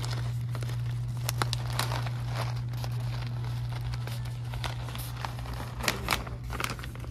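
Packaging crinkling and crackling in irregular bursts as it is handled, over a steady low hum.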